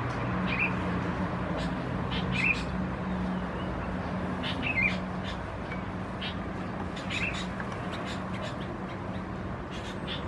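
Birds calling: short chirps repeated about every two seconds, with fainter high notes in between, over a steady low hum.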